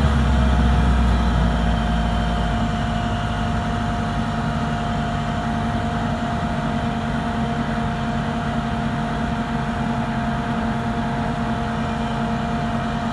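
Truck engine running steadily under way, heard from inside the cab, a deep drone whose low rumble eases slightly a couple of seconds in.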